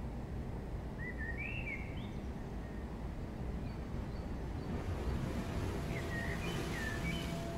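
Outdoor ambience: a steady low rumble with a small bird chirping, a few short calls about a second in and more from about five seconds in. A hiss swells near the end.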